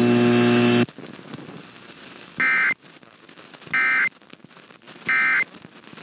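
Emergency Alert System end-of-message data bursts heard over AM radio: three identical short, shrill digital tone bursts about 1.4 s apart, marking the end of the relayed severe thunderstorm warning. Before them a loud steady buzz cuts off just under a second in, and faint radio static fills the gaps.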